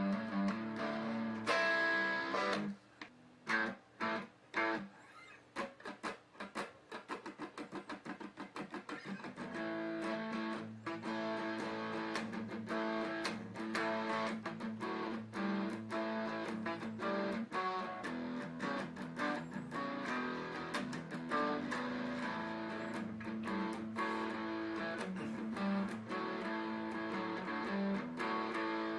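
A guitar being played: short, separate plucked strokes that come faster and faster, then a steady run of picked notes from about ten seconds in.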